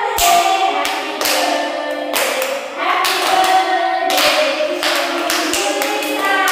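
A group of adults and children singing a birthday song over lit candles, clapping along on the beat.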